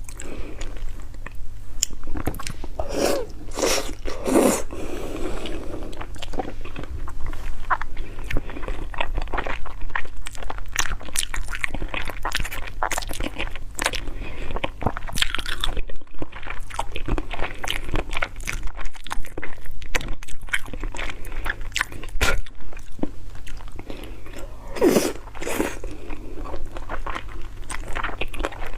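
Close-up chewing and crunching of bony stewed toad, with many sharp, irregular crackles as the small bones are bitten through.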